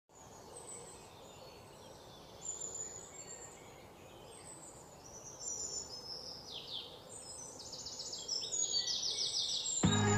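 Birds chirping and trilling in short high calls over a soft, steady outdoor hiss, the calls growing busier as it goes on. Near the end, music with a low bass comes in over them.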